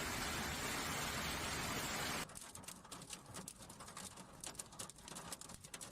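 Heavy rain, a dense steady hiss, that cuts off abruptly about two seconds in. It gives way to a quieter, irregular patter of many separate drops striking a hard surface.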